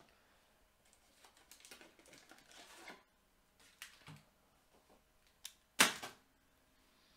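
Trading cards and their packaging being handled: a run of quick soft clicks and rustling, then a few separate sharper clicks, the loudest one about six seconds in.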